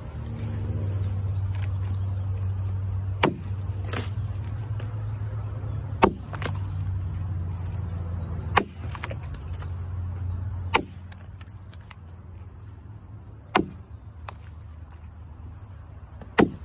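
A 5.5 lb Kentucky pattern axe chopping into a cottonwood log: seven sharp strikes, two to three seconds apart, one lighter. A steady low hum runs underneath and stops about eleven seconds in.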